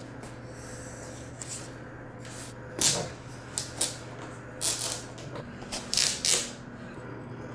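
Vinyl plank flooring being handled on a concrete floor: a scored plank is flexed along its cut and shifted into place, giving several short scrapes and rustles, the loudest about three seconds in and a pair about six seconds in.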